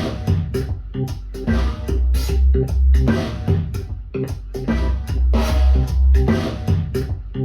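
Rock/pop music with bass guitar, guitar and a drum kit, played back through Wharfedale Diamond 9.0 loudspeakers driven by a NobSound NS-15G amplifier. Strong held bass notes under a steady drum beat.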